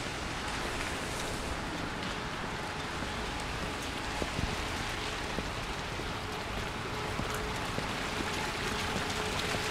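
Steady rain falling, with scattered drops ticking, and a faint steady hum underneath.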